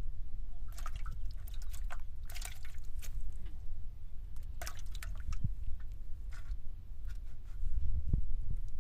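Water splashing and dripping in short, irregular bursts over a steady low rumble.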